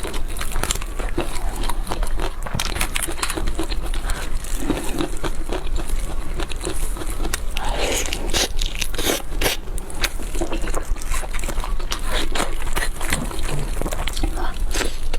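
Close-miked eating sounds: chewing and tearing chicken, a dense run of irregular small clicks, smacks and crackles over a steady low hum.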